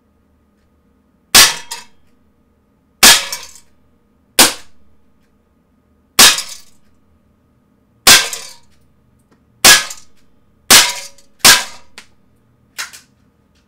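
Umarex Desert Eagle CO2 pellet pistol firing .177 pellets, eight sharp pops at irregular intervals of one to two seconds, each with a short decaying tail. A fainter pop follows near the end.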